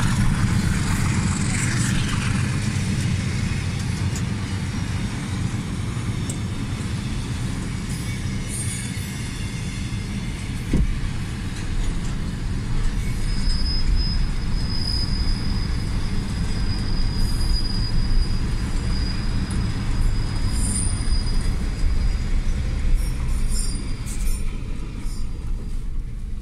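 A diesel-hauled freight train rolling past: a steady rumble of wagons on the rails, with a thin high wheel squeal through the middle stretch.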